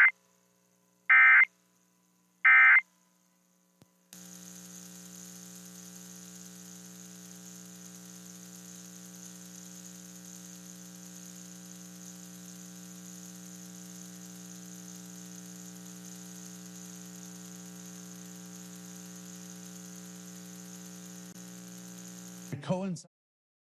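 Emergency Alert System end-of-message code: three short, loud digital data bursts about 1.3 seconds apart. About a second later a steady electrical buzz with many overtones starts and runs for roughly 18 seconds, breaking off near the end with a brief short sound.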